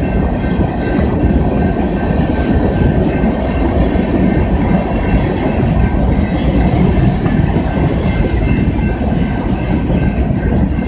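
The empty cars of a freight rock train rolling steadily past over a road crossing. There is a continuous rumble of steel wheels on the rails, with short clacks from the wheels running over the rail joints.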